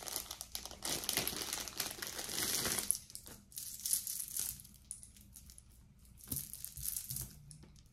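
Packaging rustling and crinkling as jewelry is unwrapped by hand, densest for the first three seconds, then scattered small rustles and clicks.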